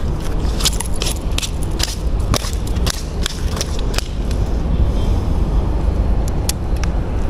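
Irregular sharp clicks and knocks, thickest in the first four seconds and sparser after, over a steady low rumble.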